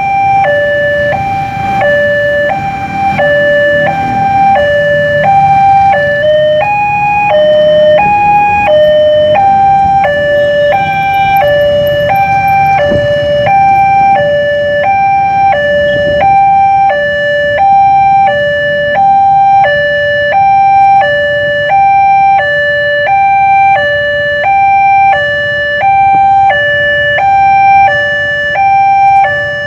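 Indonesian railway level-crossing electronic alarm sounding its warning: two steady tones, one lower and one higher, alternating about twice a second without a break.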